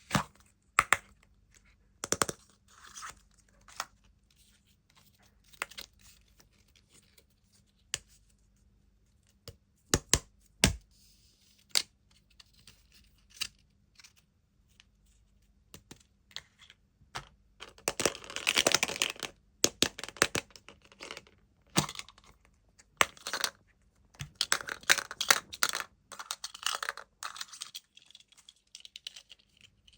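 Close-miked ASMR handling of plastic toys and packaging: scattered sharp taps and clicks, with two longer bursts of wrapper crinkling and tearing, one about two-thirds of the way in and another a few seconds later.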